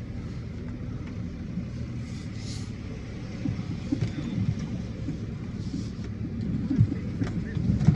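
Citroën Berlingo van's engine running under load, heard from inside the cab as it pulls out across a muddy field. The revs rise and fall a few times in the second half.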